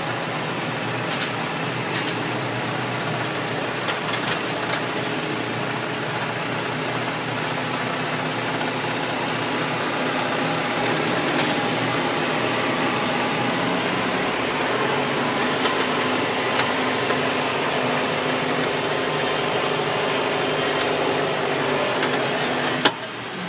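John Deere 6420 tractor's diesel engine running steadily, heard from inside the cab. Near the end a sharp click comes and the sound drops in level.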